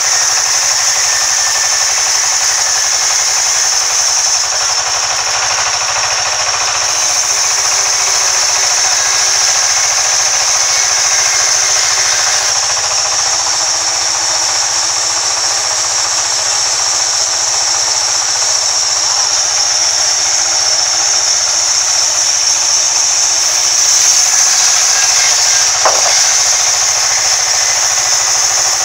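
Vertical band saw cutting lengthwise through a thick wooden slab: a steady high hiss of the blade in the wood over the machine's running noise. A single short knock comes near the end.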